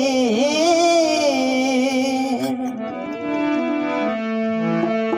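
A Rajasthani devotional bhajan: a male voice holds a long wavering note that ends about two and a half seconds in, then steady held notes from the accompanying instrument carry on.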